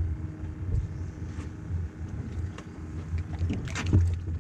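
Wind rumbling unevenly on the microphone aboard a small fishing boat, with a few sharp knocks about three and a half to four seconds in.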